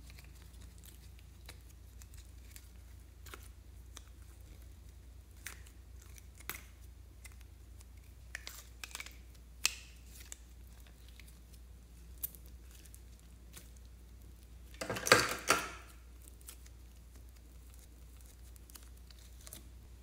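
Hands working a yellow plastic container to get soft clay out of it: scattered small plastic clicks and crinkles, with a short, louder burst of crackling about fifteen seconds in.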